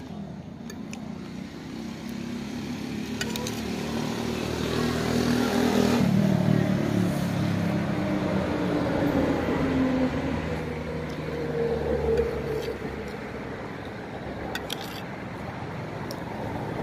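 A motor vehicle engine passing by: it grows steadily louder to a peak about six seconds in, then fades away, with a smaller swell again around twelve seconds. A couple of light clicks are heard, one about three seconds in and another later on.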